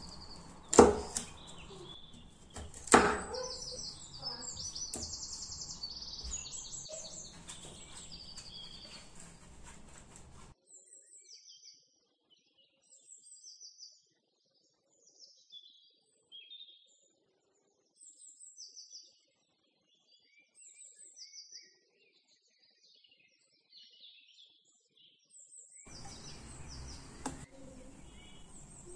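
Kitchen knife cutting through cabbage onto a cutting board: two sharp cuts, about one and three seconds in. Small birds chirp in the background throughout. Midway, the background noise drops away, leaving only the bird chirps.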